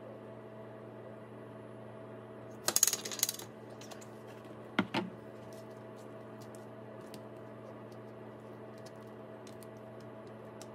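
Clinking clatter of a glass olive oil bottle and a plastic container handled on a glass cooktop, with a cluster of sharp clinks about three seconds in and a single knock near five seconds, then faint ticks. A steady low hum runs underneath throughout.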